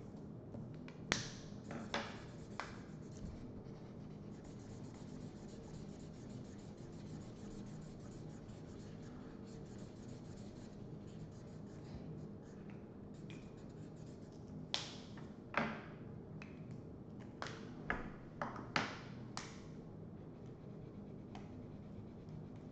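Felt-tip markers scratching over paper on a tabletop, with sharp clicks and taps from markers being handled, clustered near the start and again in a quick run near the end, over a steady low hum.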